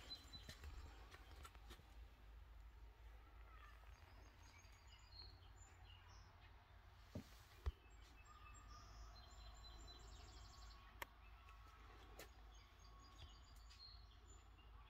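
Near silence: low room hum with a few faint clicks, the loudest nearly eight seconds in, and faint high chirps.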